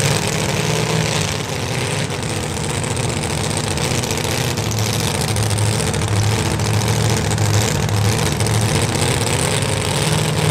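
Supercharged engine of a super modified two-wheel-drive Ford pulling truck idling at the start line, its low note pulsing slightly.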